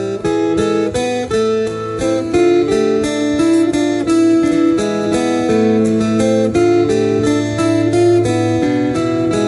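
Four acoustic guitars strumming and picking together, an instrumental passage with no singing.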